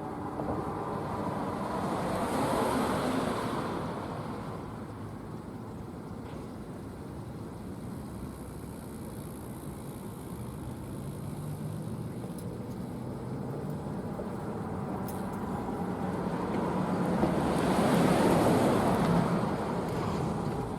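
Cars passing on a road: two swells of tyre and engine noise, one about two seconds in and a louder one near the end, over a steady traffic background.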